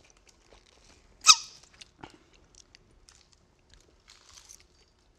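A single short, loud squeak about a second in as a drink is sucked from a plastic bottle's spout, with a falling pitch, followed by a few faint clicks.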